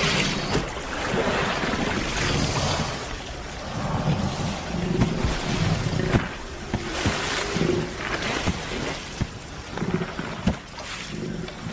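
Water splashing and churning as a jaguar seizes a caiman in a river, loudest in the first few seconds. Wind buffets the microphone.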